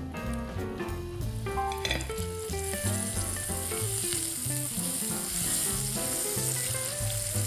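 Butter sizzling as it melts into hot caramelised sugar in a frying pan while a spatula stirs it in. The sizzle grows louder about two and a half seconds in, over background music.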